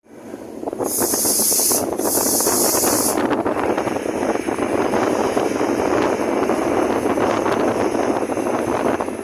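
Wind and road noise from a moving car, heard from inside the car. Two bursts of high hiss come in the first three seconds.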